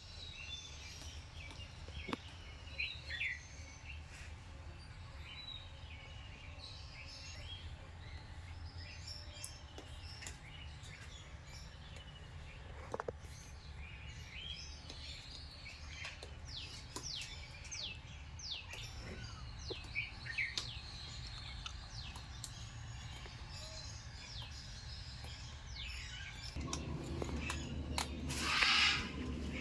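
Birds chirping and calling in many short, high chirps over a steady low hum, with one louder, rough call lasting about a second near the end.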